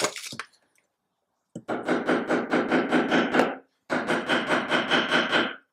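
Small hammer tapping a roll pin into an AR-15 front sight block to secure the gas tube, in two quick runs of light, even taps with a metallic ring and a short pause between them.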